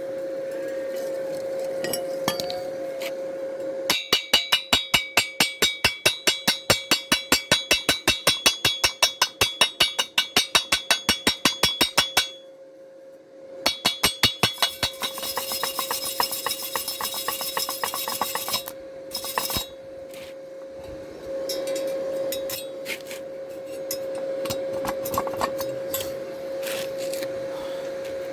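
Rapid metallic tapping of a chipping hammer knocking slag off a stick weld on thin square steel tube, about five ringing strikes a second for some eight seconds, a short pause, then a few more strikes followed by a few seconds of scratching. A steady hum runs underneath.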